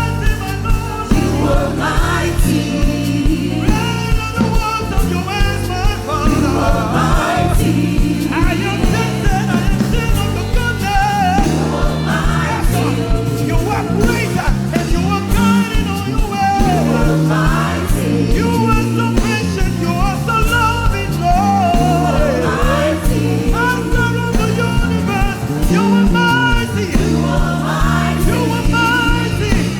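Live gospel worship music: voices singing a praise song together over a band with a steady beat.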